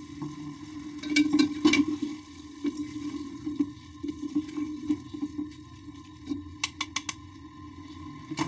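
Chicken keema cooking in water in a metal pot, with a wooden spoon scraping and knocking against the pot as it is stirred, loudest between one and two seconds in. A few quick sharp taps follow near the end.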